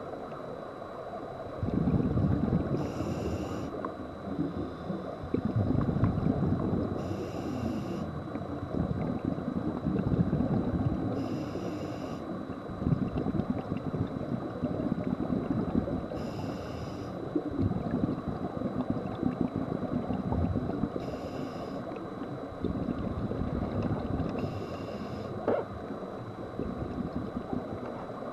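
Scuba diver breathing through a regulator underwater: a short hissing inhale about every four and a half seconds, six times, each followed by the bubbling rumble of exhaled air.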